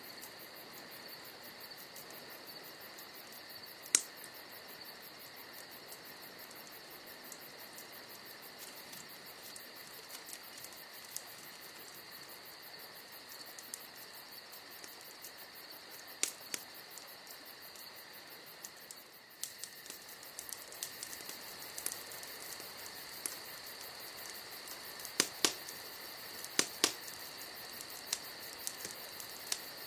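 Crickets chirping steadily while a wood campfire crackles, with occasional sharp pops from the burning logs: one loud pop about four seconds in and a quick cluster of pops near the end.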